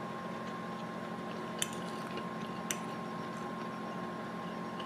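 A metal fork tapping a ceramic plate twice while scooping rice, two short clicks about a second apart, over a steady background hum with a thin high tone.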